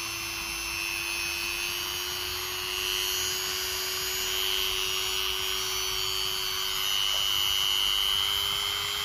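Modern mini grinder (electric rotary tool) running with no load, its motor whine rising in pitch and getting louder in a few steps as the speed dial is turned up from 1 to 3.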